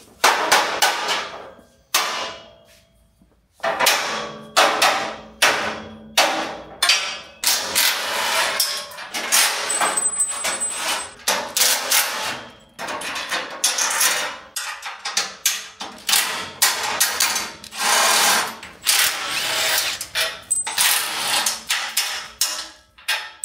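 Cordless impact driver rattling in repeated bursts of up to about a second, backing the bolts out of a steel motorcycle shipping crate, with metal knocks and clanks of the crate frame. A few sharp knocks come in the first couple of seconds, before the driver starts.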